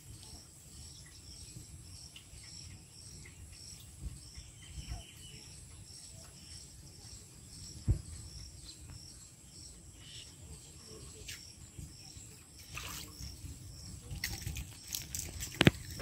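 Quiet pondside ambience: a small animal's high chirp repeats regularly about twice a second over a faint steady high hiss and a low rumble. Near the end there is a short burst of sharp knocks and splashy rustling as a fish is pulled from the water.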